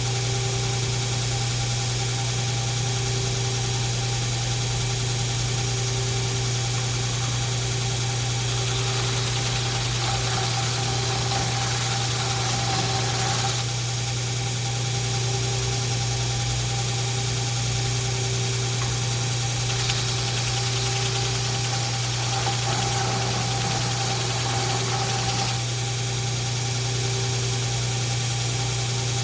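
Belt grinder running steadily with a worn 80-grit belt, a constant motor hum under a faint regular pulse, as an antique cleaver's edge is ground down to remove a rust pit. The grinding hiss thickens in two stretches, about a third of the way in and again past two-thirds.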